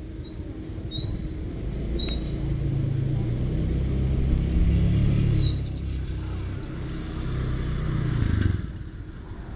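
A motor vehicle's engine passing by: a low drone that grows louder to a peak near the middle and dies away about a second before the end. A few short, high chirps sound over it.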